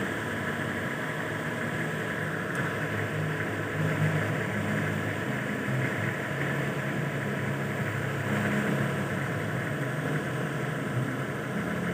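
Nissan forklift's engine running steadily, with no revving.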